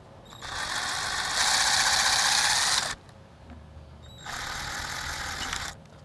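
Cordless drill-driver running in two spells, the first longer and growing louder partway through, as it backs a screw out of an elm log's bark.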